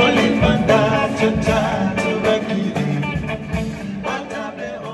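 Music with singing and guitar over a steady beat, growing gradually quieter toward the end as it fades out.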